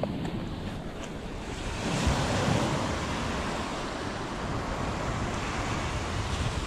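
Small waves breaking and washing up on a sandy beach, a steady rush that swells louder about two seconds in, with wind on the microphone.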